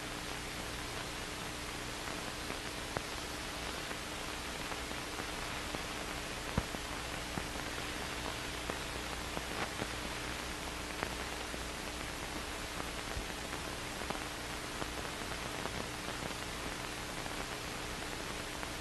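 Steady hiss of an old film soundtrack with a faint steady hum under it and scattered faint clicks and pops; no sound from the work on screen is heard.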